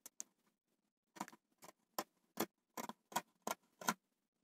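Scissors snipping through polar fleece fabric: a quiet run of about ten short sharp clicks, a few a second, as the blades close, starting about a second in.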